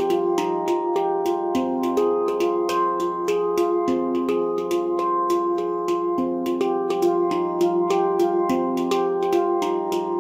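Nimo Sounds handpan in F low Pygmy tuning played with the hands: a steady stream of finger and palm strikes, about four a second, with the tone fields ringing into one another.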